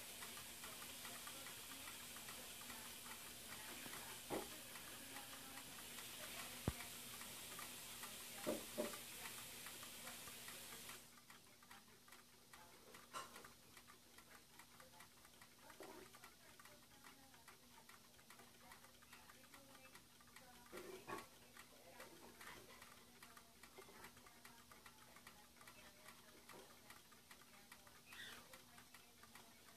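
Faint, rapid, irregular ticking from a tableful of solar-powered dancing toys rocking on their bases, over a steady low hum, with a few louder clicks scattered through.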